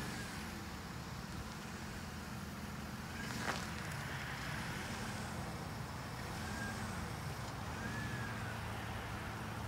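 Minivan engine running steadily as it tows a car on a rope, with one sharp click about three and a half seconds in.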